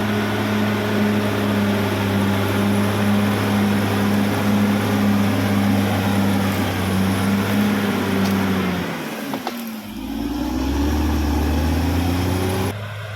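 Caterpillar D6R XL bulldozer's diesel engine running steadily; about nine seconds in its pitch sags and then climbs again, and the sound drops off abruptly near the end.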